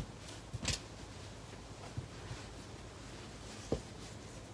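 Quiet room tone with faint handling of knit fabric while a sleeve is being marked: a brief soft rustle under a second in and a light click near the end.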